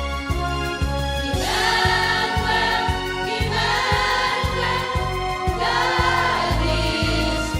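Choir singing a hymn-like song with instrumental accompaniment and a steady beat; the voices come in over held chords about a second and a half in.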